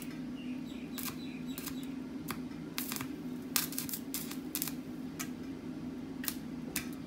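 Arc welding a steel rod: irregular crackling and popping of the arc over a steady low hum.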